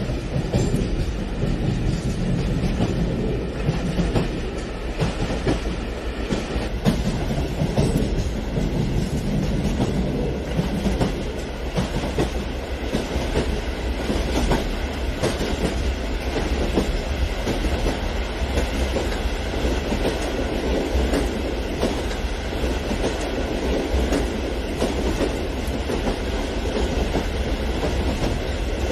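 Toy trains rolling along plastic track: a steady running rumble with dense, rapid clicking of the wheels over the track.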